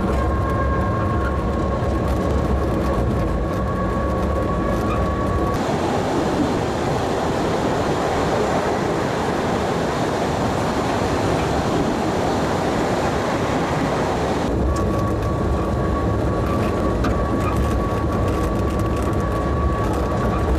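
Postojna Cave tourist train running along its track: a steady rumble of wheels on rail with a thin, steady whine. The whine drops out about five seconds in and the sound turns to an even rushing noise. It comes back for the last few seconds.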